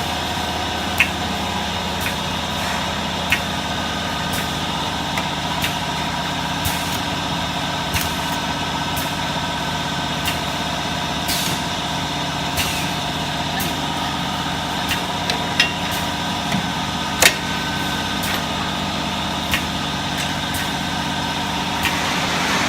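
Automatic perfume bottle filling and crimping machine running with a steady hum of several fixed tones, punctuated by sharp clicks and clinks every second or two at uneven intervals.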